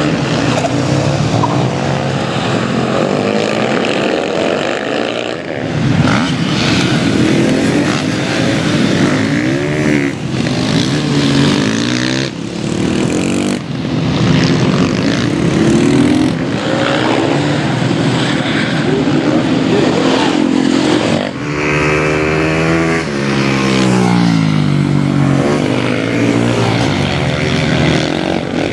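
Supermoto racing motorcycles going past, several at once, their engines revving up and falling away through gear changes as they brake and accelerate through corners. The sound changes abruptly several times.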